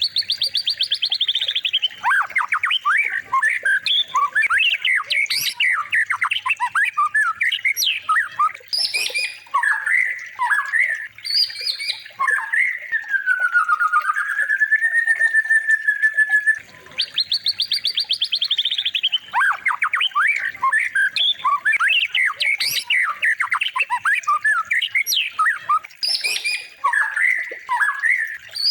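A songbird singing a long, varied song of quick slurred whistles and sharp notes. A fast buzzy trill comes at the start and again about two-thirds of the way through, and a slow, drawn-out whistle dips and rises around the middle.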